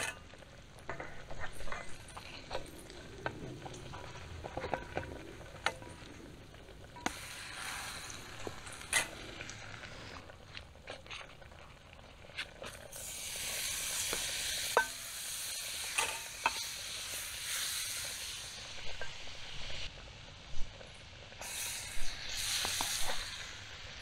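A wooden spatula scraping and knocking in a carbon-steel frying pan, then butter sizzling in the hot pan over campfire coals from about halfway through, with a second spell of sizzling near the end as cornmeal hoe cake batter cooks in the butter.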